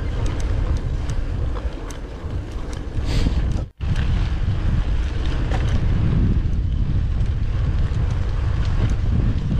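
Wind buffeting the microphone over the steady rumble of a gravel bike rolling on a rough track, with scattered light clicks. The sound drops out for a moment a little under four seconds in.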